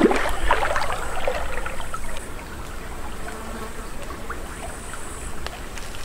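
Legs wading through a knee-deep river, water splashing and swishing around them, louder for the first two seconds and then quieter.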